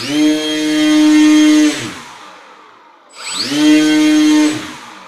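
RC plane's electric motor and propeller throttled up twice. Each time the whine rises quickly, holds at a steady pitch for about a second and a half, then winds down.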